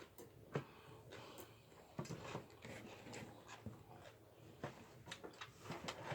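Faint eating sounds: soft chewing with scattered small clicks and taps.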